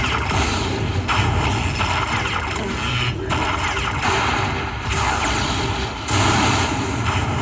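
Slot machine's electronic bonus sound effects: a run of loud, noisy crash-like blasts, each a second or two long with short breaks between, over a steady hum of casino noise.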